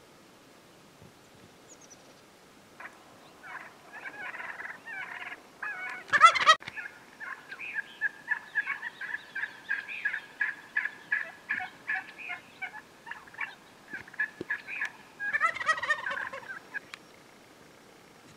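Gould's wild turkey gobbling, loudly about six seconds in and again near the end, with a long run of short, evenly spaced yelping notes between the gobbles, about two a second.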